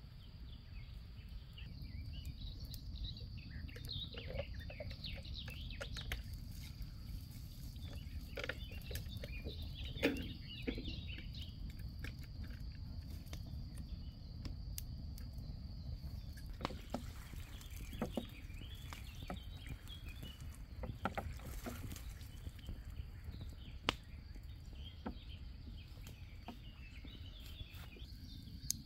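Wood campfire crackling, with irregular sharp pops scattered throughout over a low steady rumble and a thin steady high tone.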